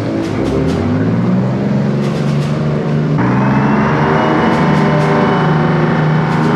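Engine of a 1967 LCVP Higgins landing craft running under way, a steady engine drone whose pitch rises in the first second. About three seconds in the sound changes abruptly and a high whine joins it, gliding slowly down in pitch.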